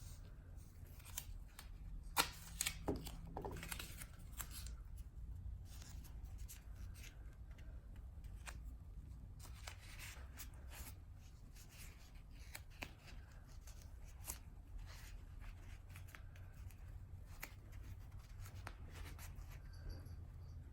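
Athletic tape being torn and wrapped by hand, faint scattered crackles and rustles, with a few sharper snaps about two to three and a half seconds in.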